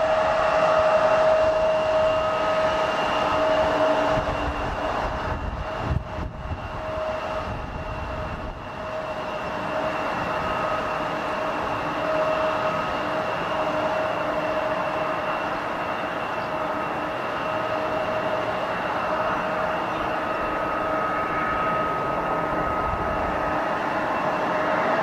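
Jet airliner engines running with a steady whine of several held tones over a rushing noise, dipping briefly with a low rumble about six seconds in.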